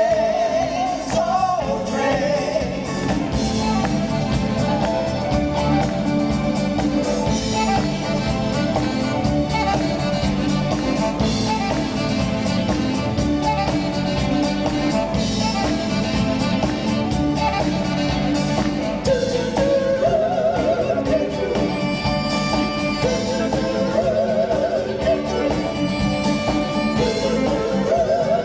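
Live band music with a female vocal group singing over drums, electric bass and guitar at a steady beat; in the second half the voices hold long notes with vibrato.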